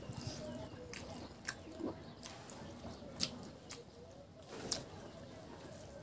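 Close-up eating sounds: chewing pork curry and rice, with soft squishing as rice is mixed by hand. A few sharp wet mouth clicks come about once a second, the loudest two in the second half.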